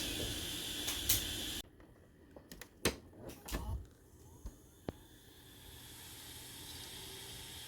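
Hard disk drive sounds: a steady whir with a couple of clicks that cuts off suddenly about a second and a half in, then a scatter of sharp clicks and ticks of the read/write heads, and a steady whir slowly building again from about five seconds.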